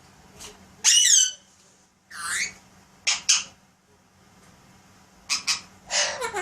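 Pet parrot giving a string of short squeaky calls and squawks with pauses between them, several sliding down in pitch; the loudest comes about a second in.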